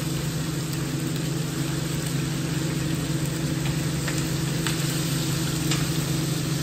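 A steady low machine hum with an even hiss over it, and a few faint clicks.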